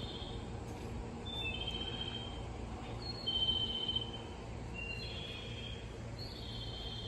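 A songbird singing short whistled phrases of two to four clear high notes, repeated about every one and a half seconds, over a steady low hum.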